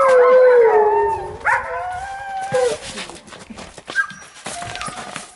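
Several Alaskan malamutes howling together in overlapping, gliding howls that break off about two and a half seconds in. A few short whines and clicks follow.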